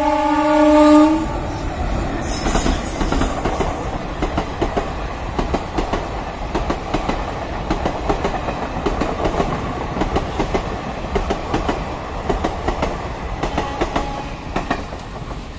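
An Indian Railways WAP-4 electric locomotive's horn sounds one long chord that stops about a second in. It is followed by a loud, steady rumble of passenger coaches running past, their wheels clattering over the rail joints.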